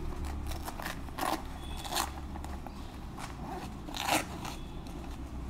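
Textile motorcycle jacket's front fastenings being worked by hand: a few short, crackling rips and scrapes with small clicks and fabric rustle between them, the loudest about a second in, at two seconds and at four seconds. A low steady hum sits underneath and fades out about halfway through.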